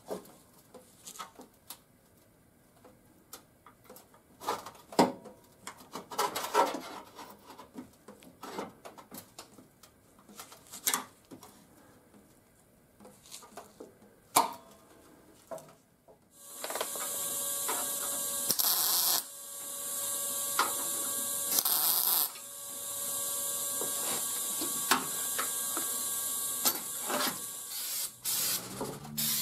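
Scattered light clicks and knocks of metal parts being handled. Then, about halfway through, a long steady spraying hiss with a faint whistle in it, twice louder for a moment, stopping shortly before the end.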